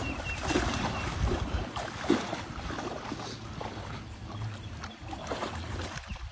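Irregular splashing and sloshing of a tiger and a dog wading through shallow pond water.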